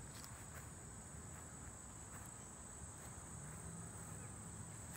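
Faint, steady high-pitched insect chorus over a low rumble.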